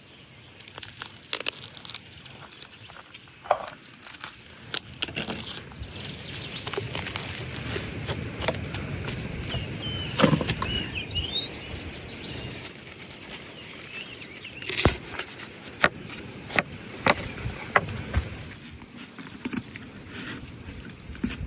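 Outdoor background with scattered clicks and knocks, and a bird chirping briefly about ten seconds in.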